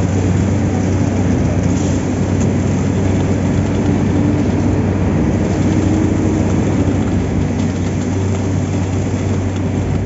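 Concrete pump running steadily, a heavy engine drone with a constant low hum, as wet concrete is pushed out through the delivery hose.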